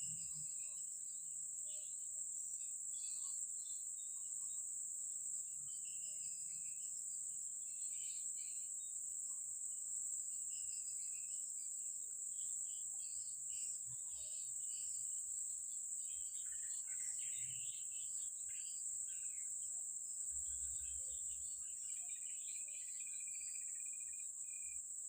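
Insects trilling in one continuous high-pitched drone, with scattered short chirps above it and a brief steady trill near the end.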